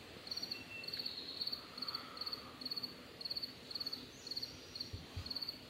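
A cricket chirping steadily, about two short trilled chirps a second. A couple of soft low thumps come near the end.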